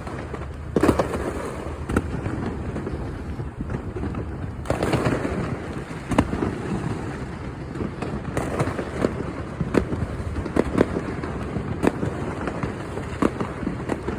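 Many fireworks going off at once: a continuous rumble of distant bangs, with sharper bangs and crackles at irregular intervals, the loudest about a second in.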